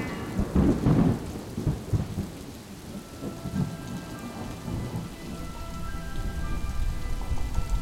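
Rolling thunder, loudest in the first two seconds, over a steady patter of rain. Faint sustained music tones come in about three seconds in.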